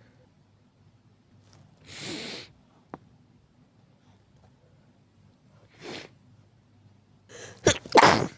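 A person's sneeze near the end, a quick catch of breath followed by a sharp, explosive blast. Earlier there are two short noisy breaths a few seconds apart and a small click.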